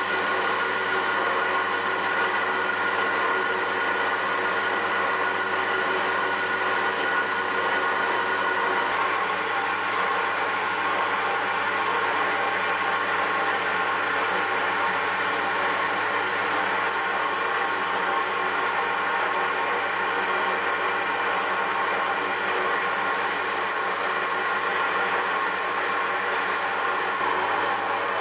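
Wood lathe running at a steady speed, its motor whine holding one pitch, while abrasive is held against the spinning pen blanks, giving an even rubbing hiss: the pen is being sanded on the lathe.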